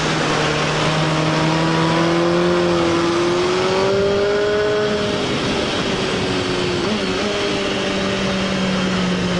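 Suzuki GSX-R sportbike's inline-four engine running under way. Its pitch rises gently over the first few seconds, then eases down, with a brief wobble about seven seconds in, over steady wind rush.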